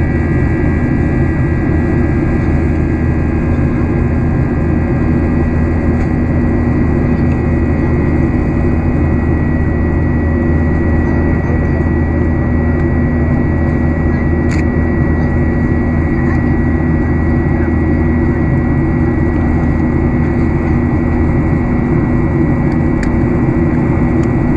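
Steady cabin noise of a Boeing 737-800 in flight, heard inside the cabin beside its CFM56-7B turbofan engine: a low, even drone of engine and rushing air with a thin, steady high whine over it.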